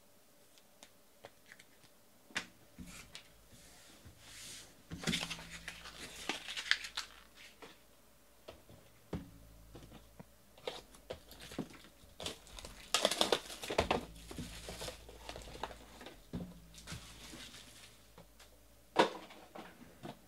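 A Bowman's Best trading card box being handled and unwrapped: crinkling and tearing of its wrapping in two stretches, with light taps of cardboard, and a single sharp knock near the end as the box is set down on the table.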